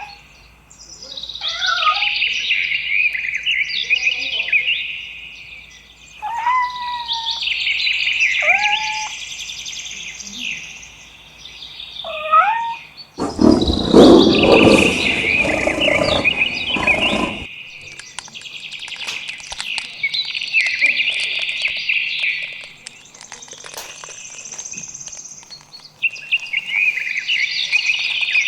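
A crowd of small birds chirping, many quick overlapping calls, broken up by a few separate lower whistled calls that rise in pitch during the first half. A loud rushing noise covers the chirping for about four seconds midway.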